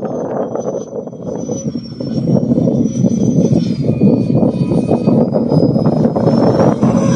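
Electric ducted-fan model jet (90 mm 11-blade Vasafan on 12S) in flight: a rushing fan noise with a thin high whine over it. The whine drops in pitch about halfway through and climbs again near the end. The sound gets louder about two seconds in.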